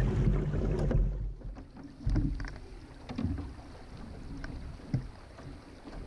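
Water splashing against the hull of a Laser sailing dinghy under sail, with wind rumbling on the microphone through the first second and a few light knocks from the boat about two and five seconds in.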